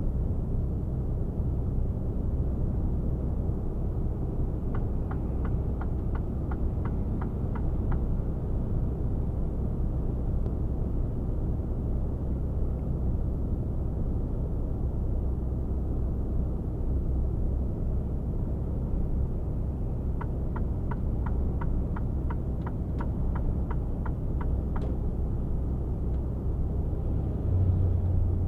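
Steady low rumble of a Mercedes-Benz Actros 1848 truck cruising at motorway speed, heard inside the cab: engine and road noise. Twice there is a run of even clicks, about three a second, from the turn-signal indicator: first about five seconds in, then again from about twenty seconds in.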